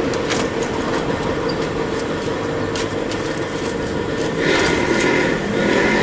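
A steady mechanical hum like a vehicle idling, with a few sharp clicks and knocks from handling the pickup's door and the alarm's arming switch. The home-made alarm's horn does not sound, because the switch is set within its 3-second delay.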